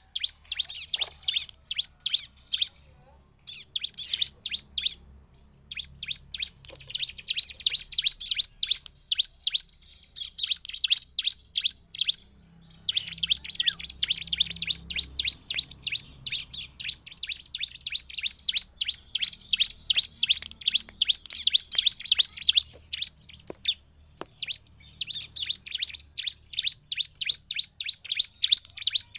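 Bar-winged prinia (ciblek) singing hard: long runs of rapid, high, sharp notes repeated many times a second, broken by a few short pauses.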